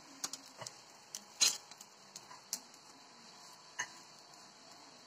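Light, scattered clicks and taps of a skewer working round a cast-iron paddu pan as the cooked dumplings are lifted out and set on a steel plate. There are about seven taps at uneven gaps, the loudest about one and a half seconds in.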